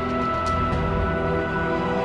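Background music: sustained notes over a steady low pulse.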